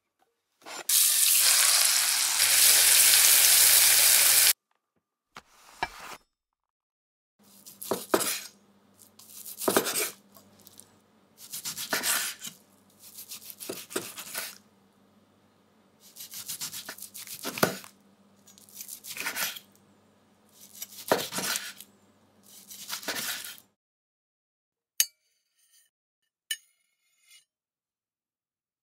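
A few seconds of loud sizzling hiss. Then a kitchen knife slices through a cooked steak on a wooden cutting board in about eight slow, evenly spaced strokes, each cut ending in a knock on the board.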